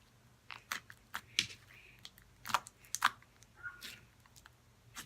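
Slime being squeezed and stretched in the hands for ASMR, giving a handful of sparse, quiet clicks and pops.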